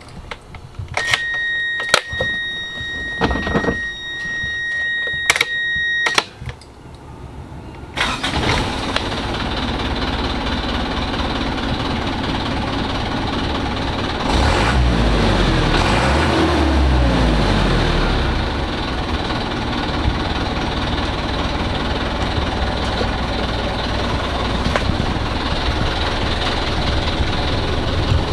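A 1996 Mitsubishi Fuso Canter's diesel engine is started from the cab. A steady electronic warning tone sounds for about five seconds with the ignition on, with a few clicks. Then the engine catches suddenly and idles. Roughly halfway through it is briefly revved and falls back to a steady idle.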